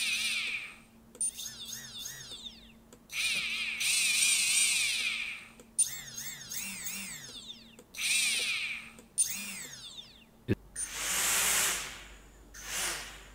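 Small brushless quadcopter motors, propellers removed, spun up one at a time from the motor-test sliders: about six whining bursts that rise and fall in pitch. The motors are run side by side to tell a brand-new motor from one worn by six months of use. After a click, two short bursts of rushing noise follow near the end.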